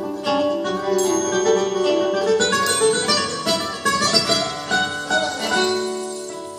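Nylon-string flamenco guitars playing a ballad live, with quick runs of plucked notes through the middle and a held chord dying away near the end.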